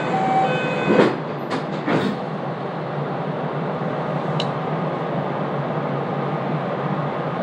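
Inside a JR West 227 series electric train: a short electronic chime ends in the first second and a few sharp knocks follow about one to two seconds in, as at the doors closing. Then comes the steady running noise of the car as the train moves off.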